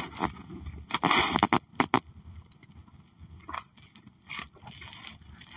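A person drinking orange juice from a plastic bottle. A short rustle and a few sharp clicks of the bottle being handled come about a second in, then quieter swallowing sounds.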